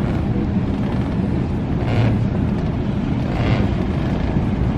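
Wind buffeting the microphone over the steady low rumble of a ship under way at sea, with two brief higher sounds about two seconds and three and a half seconds in, while crew haul on the ropes.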